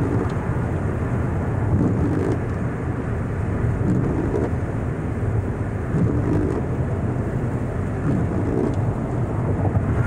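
Steady road noise inside a moving car's cabin: engine and tyres running on wet, slushy interstate pavement, a low even rumble.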